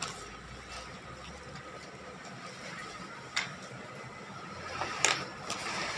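Steady low mechanical hum with a sharp click near the start and two more in the second half.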